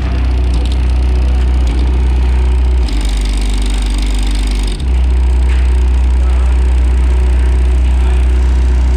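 Newly installed Pioneer car subwoofer playing loud, deep, sustained bass notes, with the bass line changing briefly between about three and five seconds in.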